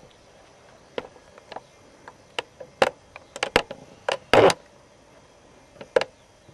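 About a dozen sharp clicks and light knocks, scattered unevenly and varying in loudness, with the loudest cluster in the middle; small handling noises just before a black-powder gun is fired.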